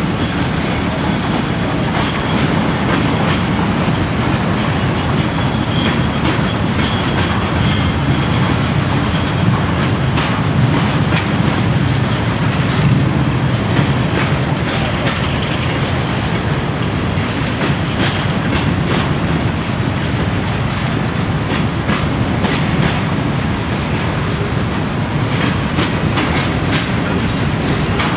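Loaded covered hopper cars of a CSX freight train rolling past a grade crossing: a steady heavy rumble with the wheels clacking over the rail joints.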